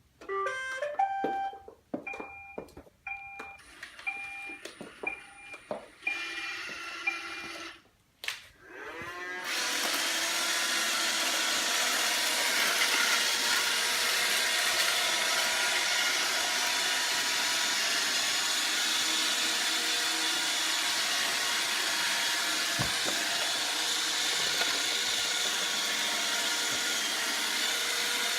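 Roomba robot vacuum starting up: a short rising electronic chime, then short beeps about once a second. About nine seconds in its motors spin up with a rising whine and it settles into a steady vacuuming whir.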